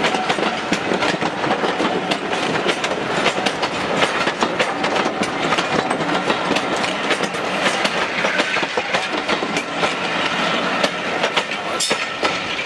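A rake of BR Mark 1 passenger coaches rolling past close by, the wheels clicking and clattering over the rail joints and points. The last coach goes by near the end.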